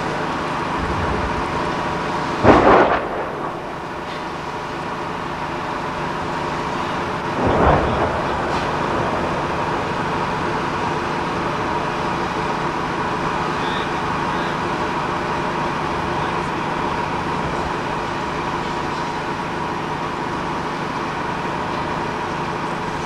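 Two shell detonations, a rumbling boom about two and a half seconds in and a weaker one about seven and a half seconds in, over the steady hum of a running power generator.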